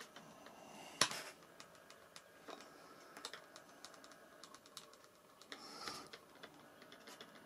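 Faint, light clicks and taps from hands handling a foam RC jet wing and wiggling its flap, which is loose at its control horn, with one sharper click about a second in.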